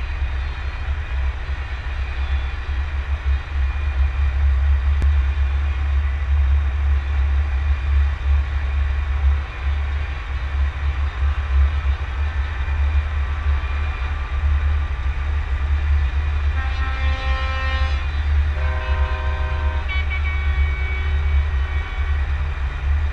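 Low, steady rumble of a Scania truck driving at parade speed, heard from a camera mounted on its cab roof. About 17 seconds in, horn tones join in, several notes changing pitch every second or so, like a multi-tone air horn.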